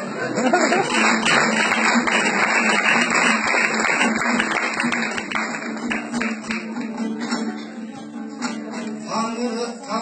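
Audience applause over a dombra being strummed; the clapping thins out after about six or seven seconds, leaving the dombra's steady strumming.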